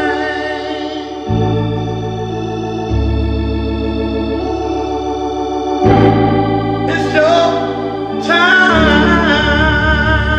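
Hammond-style console organ holding sustained chords, the bass note shifting a few times. A man's singing voice comes in over it near the end.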